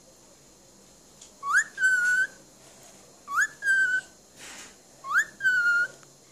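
Cockatiel whistling three times, each a quick upward slide into a held note, about two seconds apart.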